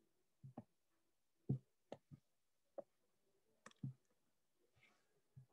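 Near silence broken by about nine faint clicks and soft taps at irregular intervals.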